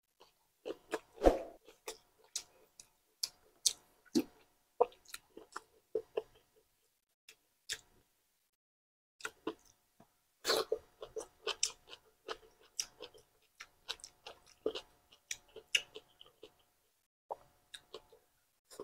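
Close-up mouth sounds of a person eating pork meatballs, pork steak and rice by hand: chewing with irregular wet clicks, smacks and pops, pausing briefly in the middle.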